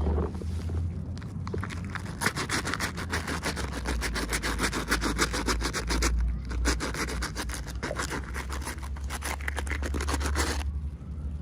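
Packaging being handled for unboxing: a dense, rapid crackling and scraping that starts about two seconds in, breaks off briefly midway and stops near the end, over a low rumble.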